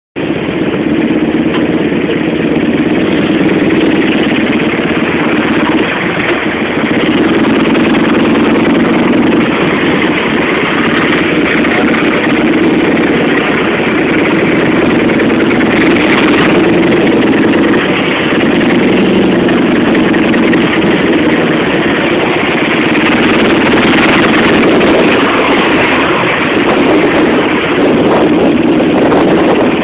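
Harley-Davidson Night Train's V-twin engine running steadily at low speed while the bike rolls through traffic, heard through a phone's microphone.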